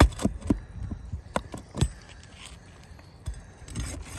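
Irregular sharp knocks and clicks of a tool prying under 3-tab asphalt shingles to loosen a damaged shingle and work it out. Several knocks come in the first two seconds, and another a bit after three seconds.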